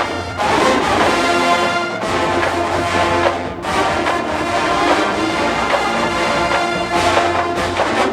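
Marching band playing, led by brass: trombones and trumpets holding sustained chords over a steady low bass.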